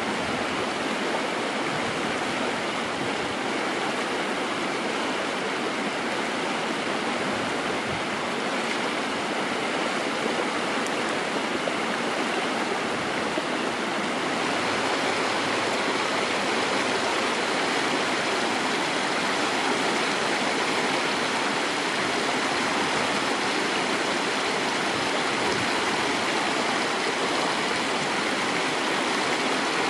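Shallow stream running steadily over rocks and small cascades, growing a little louder about halfway through.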